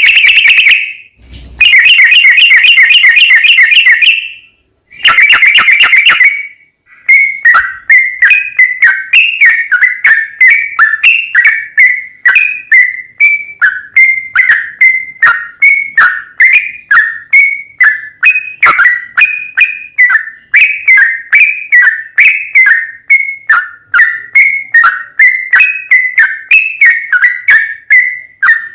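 Yellow-vented bulbul (trucukan) song played loud as a lure. It opens with three bursts of fast rolling trills, then from about seven seconds in settles into a steady series of short chirps, about two a second.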